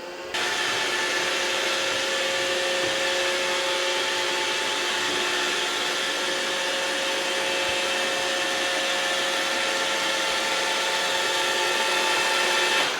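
Vacuum cleaner motor running steadily: an even whooshing hum with a few constant whining tones. It starts abruptly just after the start and fades out at the end.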